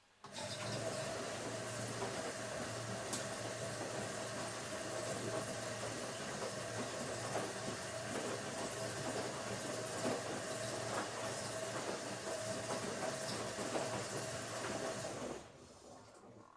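Washing machine running: a steady motor hum under a continuous rattle with small clicks. It starts abruptly and stops about fifteen seconds in.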